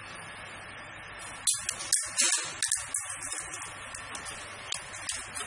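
Irregular metallic clinks and rattles at a vial filling and capping machine, starting about a second and a half in, over a steady low hum.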